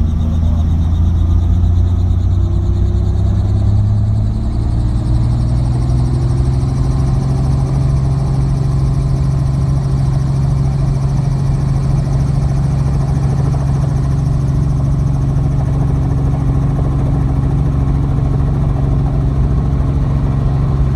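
Helicopter engine and rotor running, heard from inside the cabin while it sits on the ground before take-off. The pitch rises over a few seconds early on as the rotor speeds up, then holds steady.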